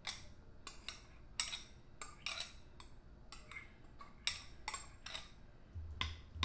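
Metal spoon scraping and clinking against a small glass bowl and glass baking dish, about a dozen irregular clinks, as sautéed onions and green peppers are scooped out into the beans.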